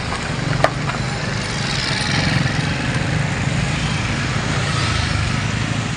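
A small engine running steadily close by, swelling slightly in the middle, with one sharp click under a second in.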